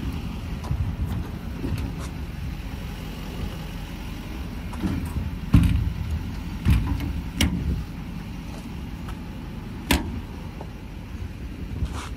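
Low steady rumble of the tow truck's 6.6-litre Duramax diesel idling, with a few sharp clicks and knocks scattered through it, the loudest about five and a half seconds in.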